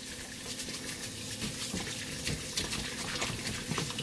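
Kitchen tap running steadily into a plastic bowl in a stainless-steel sink, while a stiff-bristled dish brush scrubs the Ninja food processor's blade assembly in the water, making small irregular scrapes and clicks.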